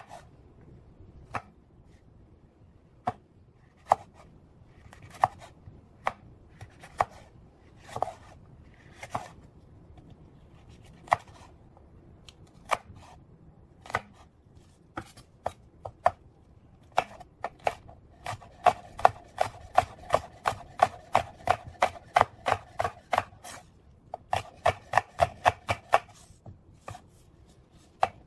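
Kitchen knife cutting a jalapeño on a wooden cutting board: single knocks spaced about a second apart as the pepper is sliced into strips, then quick, even chopping at about four strokes a second as it is diced, with a short pause before a second run.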